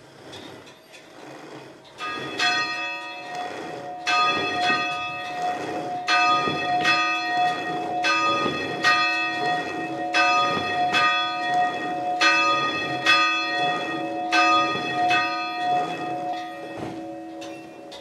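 Church bell tolling, struck about once a second, each strike ringing on into the next. It starts about two seconds in, and the strikes stop near the end, leaving the ring to fade.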